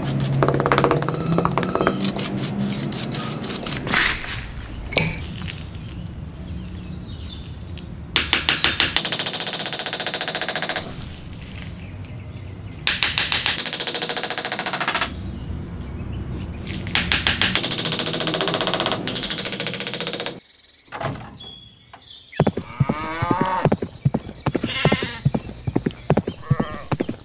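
Handwork on a miniature wooden and bamboo shed: several loud spells of rapid rasping strokes, like sawing or scraping. Near the end, a run of short animal calls that rise and fall, with clicks among them.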